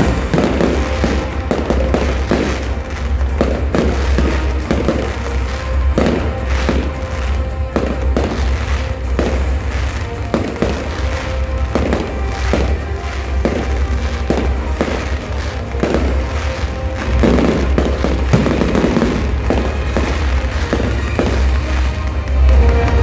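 Fireworks going off in a steady run of bangs and crackles, several a second at times, with music playing underneath.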